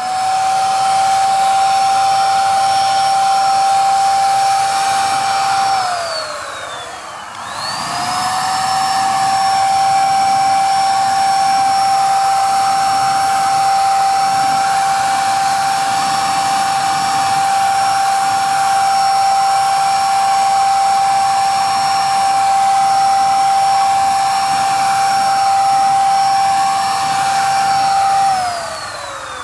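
Handheld electric paint spray gun running with a steady high whine and a hiss of air while paint is sprayed onto a wheel rim. About six seconds in it is switched off and its motor spins down with falling pitch. A second later it is switched back on and rises to speed, then runs steadily until it spins down again near the end.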